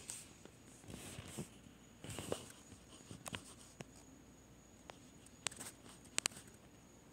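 Faint rustling and soft handling noises of paper notebook pages being turned and held, with a few sharp ticks about five and a half and six seconds in.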